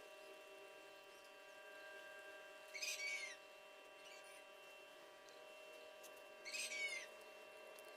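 Two short, high animal calls about four seconds apart, each with a falling pitch, over a faint steady hum.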